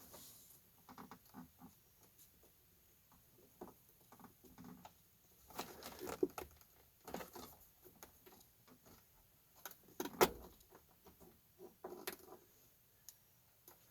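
Faint scattered clicks, taps and light scrapes of a pick and key working the ignition lock cylinder free of a Ford F-series steering column, with one sharper click about ten seconds in.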